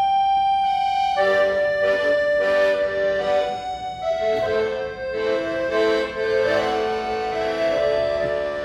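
Accordion playing a slow melody over held chords. A long held note gives way about a second in to a new chord, and the notes move more quickly in the second half.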